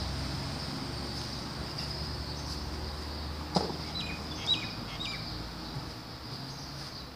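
Outdoor garden ambience with a steady high hiss and low hum. A single thud a little over three and a half seconds in fits a soccer ball being kicked, and a small bird chirps a few short falling notes just after it.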